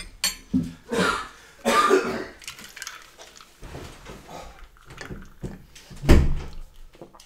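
Several short throat and mouth sounds from a person eating, cough-like, with quiet gaps between them. A louder thud comes about six seconds in.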